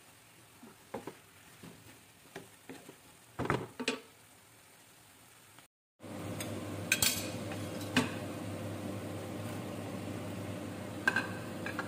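Wooden spatula knocking and scraping against a wok as vegetables coated in curry powder are stirred. After a sudden cut about six seconds in, a steady mechanical hum takes over, with a few sharp clacks of the spatula on the pan as bell peppers are stirred in.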